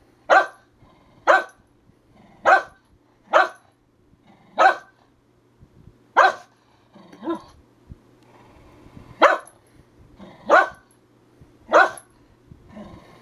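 A long-haired herding dog barking in single sharp barks, roughly one a second, with a pause of about two seconds partway through.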